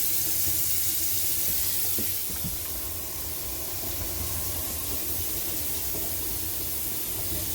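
Kitchen faucet running steadily into a sink basin, a constant rush of water.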